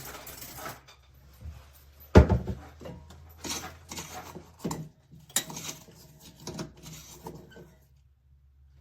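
Kitchenware being handled: a loud knock about two seconds in, then several lighter clinks and clatters, dying away near the end.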